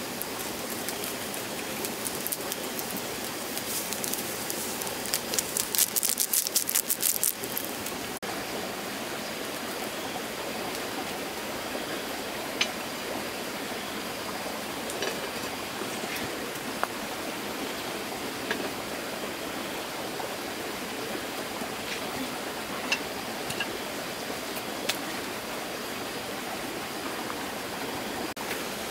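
Steady rushing of water, with a burst of dense crackling about five seconds in and a few sharp clicks after it.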